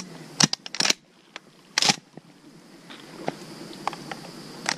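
Handling noise: a quick cluster of sharp clicks and knocks about half a second in, a louder short rustle near two seconds in, then a few faint ticks.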